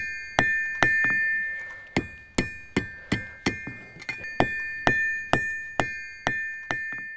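Blacksmith's hammer striking an anvil in a steady rhythm of about two blows a second, each blow ringing at the same high pitch that carries on between strikes.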